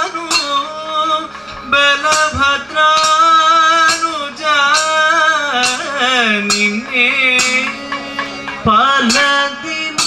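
Kathakali vocal music: a male singer's ornamented, gliding song line over percussion strokes at a steady beat, with chenda and maddalam drums accompanying.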